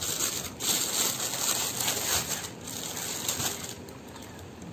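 Plastic packaging crinkling and rustling irregularly as takeaway milk tea cups are handled and unpacked, easing off about three and a half seconds in.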